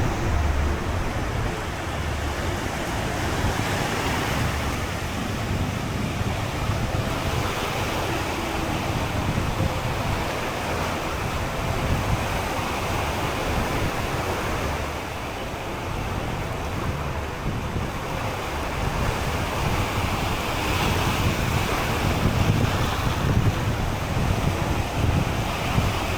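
Sea surf breaking and washing up the beach, swelling and easing in waves, with wind buffeting the microphone.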